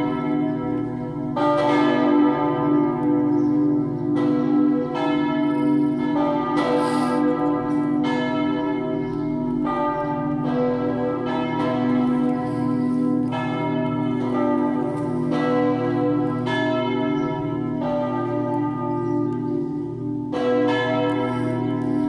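Full peal of four swinging church bells tuned B2, D3, E3 and G3 (two cast in 1804, two in 1855), ringing together. Strikes come about once a second and overlap into an irregular stream over a lingering hum.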